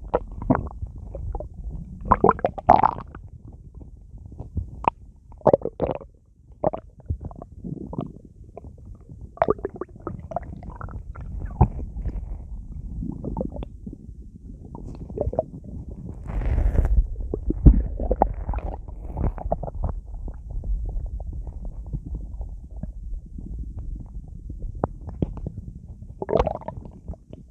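A human stomach bloated with soda gurgling and rumbling as the swallowed liquid and carbonation gas move through it: many irregular short gurgles, squeaks and pops, with a longer, louder rumble a little past halfway.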